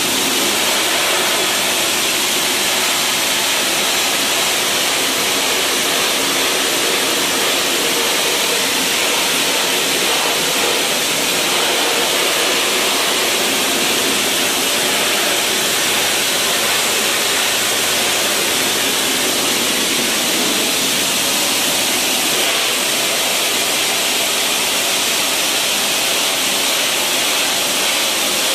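High-pressure water jetter spraying through its lance nozzle into a steel channel drain: a loud, steady hiss of spray blasting grime off the metal.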